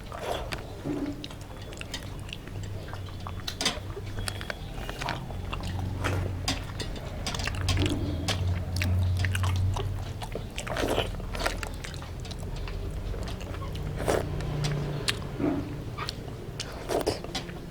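Close-up eating sounds: chewing and biting through a home-cooked meal, with many short, irregular clicks and smacks over a low steady hum.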